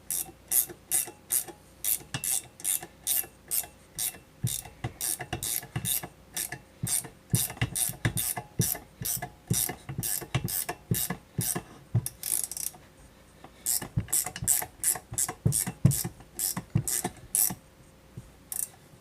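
Hand ratchet wrench being worked back and forth, its pawl clicking in quick even strokes about twice a second, with one short pause about two-thirds of the way through.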